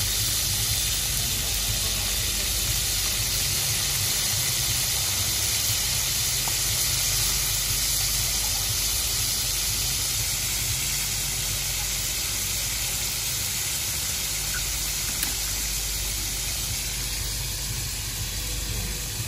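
Slices of steak sizzling on hot iron serving plates: a steady hiss that eases off slightly toward the end, over a low steady rumble.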